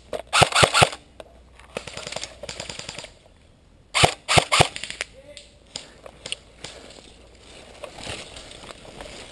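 Airsoft guns firing in short bursts of about four quick shots: one burst just after the start and another about four seconds in, with fainter scattered shots between and after.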